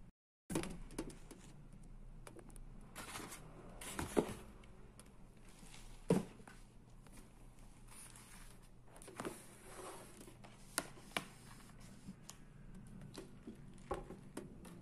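Cardboard gift boxes and a paper cup being moved and set down on a table: scattered knocks and taps with light rustling, the sharpest knocks about four and six seconds in.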